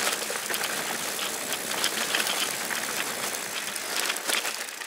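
Loaded mountain bike rolling fast over a dirt and gravel trail: steady tyre noise with many small clicks and rattles from the bike and its bags over the bumps, easing off near the end.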